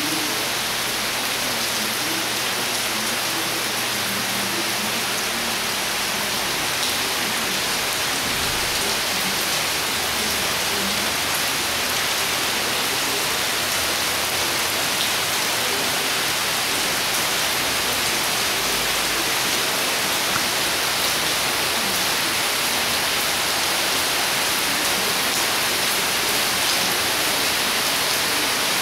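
Heavy tropical downpour from the outer bands of a hurricane: a steady, dense hiss of rain that neither builds nor eases.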